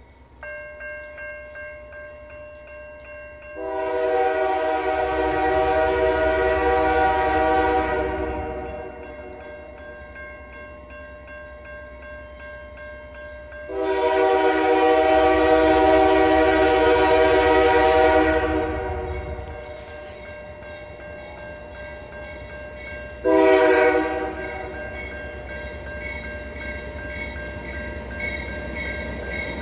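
Locomotive air horn sounding two long blasts and then a short one, the grade-crossing horn signal, over the ringing of the crossing's warning bell. The train's low rumble grows toward the end.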